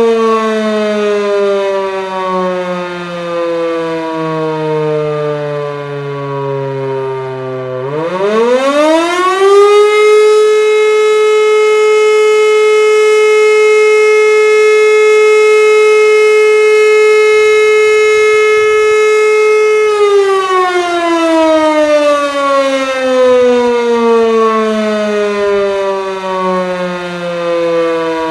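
E57 electromechanical siren sounding the fire-alarm signal. It glides down in pitch, spins back up about eight seconds in, and holds one steady loud tone for about ten seconds. Then it winds down again in a long falling glide between blasts.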